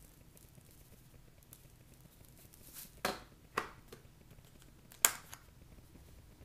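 Salt shaker and black-pepper tin handled over a countertop while seasoning food: faint shaking, then three sharp clicks and knocks in the second half, the last the loudest.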